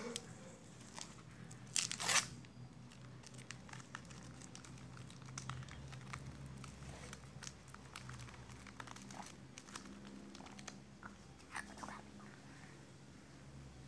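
Plastic snack wrappers crinkling and rustling as they are handled, with scattered small crackles and crunches; the loudest burst of rustling comes about two seconds in.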